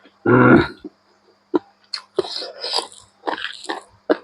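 A short, loud throat sound from the eater about a quarter second in, then a run of wet chewing and mouth clicks while eating pork.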